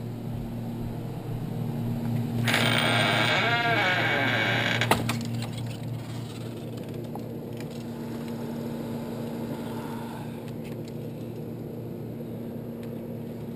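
A door being opened: a loud scraping rush lasting about two seconds, ending in one sharp click, over a steady low hum.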